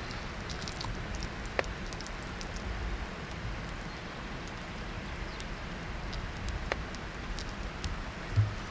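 Campfire crackling and hissing steadily, with many small ticks and a couple of sharper pops. A dull thump near the end.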